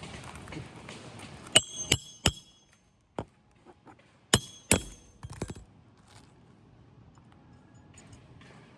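Sharp metallic clinks of a hand tool, each with a brief ring: three in quick succession about a second and a half in, then two more near the middle, with a few lighter taps after.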